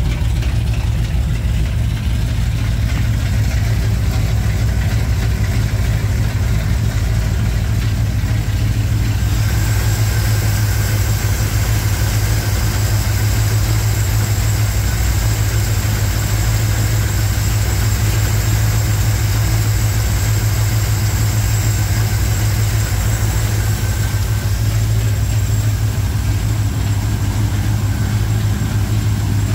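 Carbureted Chevrolet engine of a 1987 K10 pickup idling steadily after a head gasket replacement. The idle holds an even low hum, and from about nine seconds in more high-pitched whir and hiss join it.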